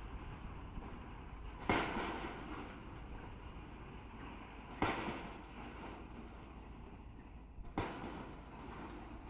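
Pile-driver hammer striking the head of a precast concrete pile: three heavy blows about three seconds apart, each a sharp bang with a short ringing tail, over a steady low rumble.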